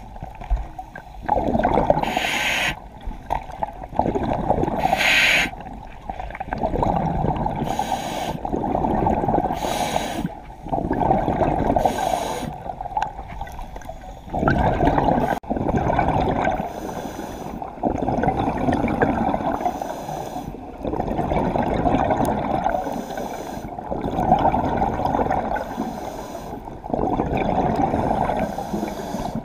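Scuba diver breathing through a regulator underwater: short hisses on the inhale and longer bubbling gurgles on the exhale, repeating every few seconds.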